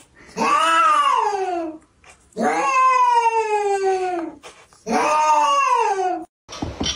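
Ginger tabby cat giving three long, drawn-out meows, each rising and then falling in pitch, with short pauses between them.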